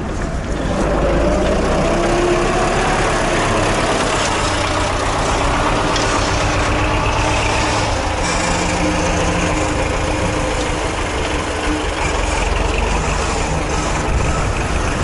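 Tractor diesel engine running under load, its pitch rising about a second in as it works a front-loader bucket pushing earth onto a pile.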